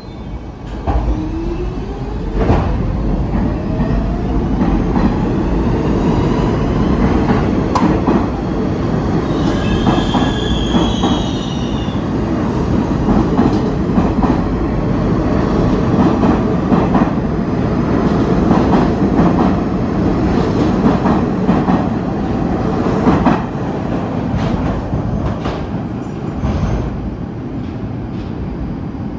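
R46 subway train pulling out of the station: a motor whine rises in pitch as it accelerates, over a steady rumble with clacking wheels on the rail joints. A brief high wheel squeal comes about ten seconds in, and the sound eases off near the end.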